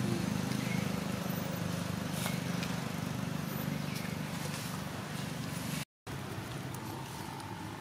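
A low, steady mechanical hum that fades after about four seconds, with a few faint short chirps over it. The sound drops out for a moment about six seconds in.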